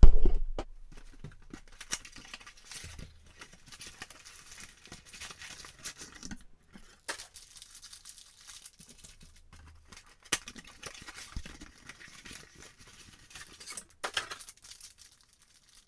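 Plastic and foil trading-card packaging crinkling and tearing as it is opened by hand, with scattered small clicks and rustles. A sharp knock at the very start.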